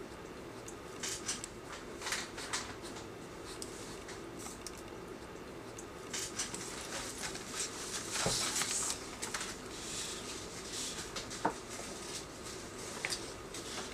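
Craft knife scratching through screentone on a drawing in short strokes. Later comes the rustle of the plastic tone sheet being lifted and peeled off the page, over a steady low hum.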